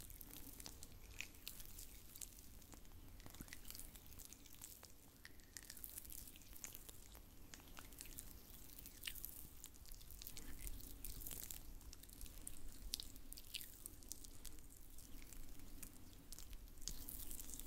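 Oiled hands rubbing and pressing together close to the microphone for an oil-massage sound: faint, wet, sticky clicks scattered throughout, with brief soft swishes now and then.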